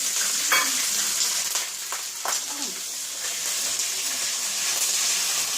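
Chillies frying in hot oil with browned garlic: a steady sizzle with a few sharp pops as the chillies spatter.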